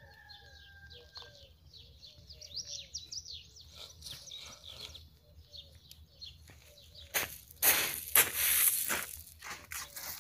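Small birds chirping and twittering in the background. About seven seconds in, a loud rough rustling noise lasts about two seconds.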